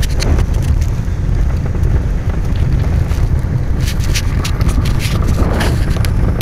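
Velomobile rolling along an unpaved trail: a steady low rumble from the tyres and shell, with wind buffeting the microphone and scattered sharp clicks and knocks.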